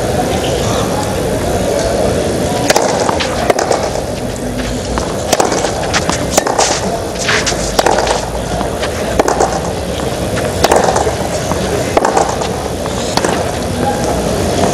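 Tennis rally on a clay court: sharp racket strikes on the ball, roughly one every second or so, over a steady background of crowd and stadium noise.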